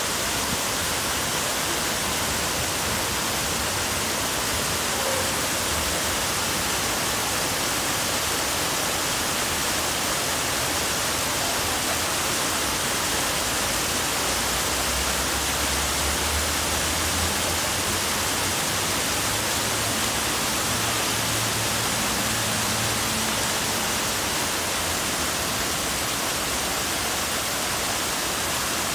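Fountain with dozens of vertical water jets falling back into its basin: a steady, dense splashing rush of water. A faint low hum comes in about halfway through.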